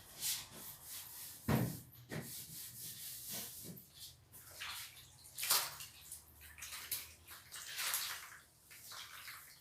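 Water splashing and dripping as a wet cleaning cloth is rinsed and wrung out, in irregular splashes, with a knock about a second and a half in.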